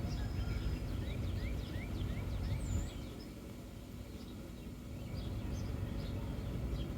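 2003 Honda Civic four-cylinder engine idling with a low rumble that drops off about three seconds in and picks up again toward the end. The engine is one that misfires and shakes after running a little while. Birds chirp over it, a quick series of short rising chirps in the first few seconds.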